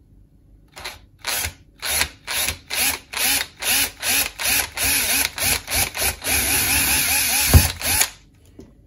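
Cordless drill boring into a white plastic pipe, its trigger pulsed in short bursts about two or three times a second, each with a rising whine as the motor spins up. It then runs steadily for about two seconds, with a sharp knock just before it stops.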